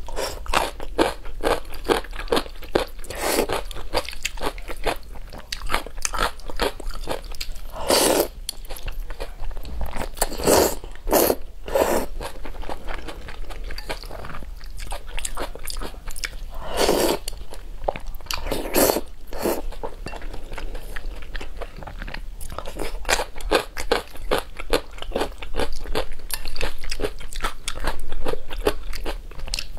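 Close-miked eating of spicy instant noodles: steady wet chewing and mouth clicks, with a handful of louder mouthfuls scattered through.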